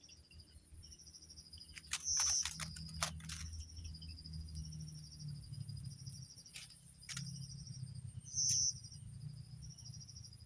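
Insects trilling steadily in a swamp, a high pulsing chorus. Several sharp clicks and knocks cut through, two loud ones about two seconds in and near the end, over a low rumble.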